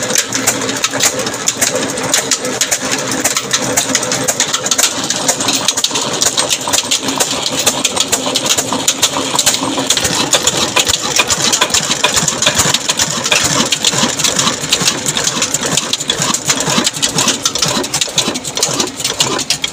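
Old black 22 hp horizontal diesel engine with a big flywheel running steadily at about 300 rpm, a rapid, even mechanical clatter as it belt-drives a tube-well pump.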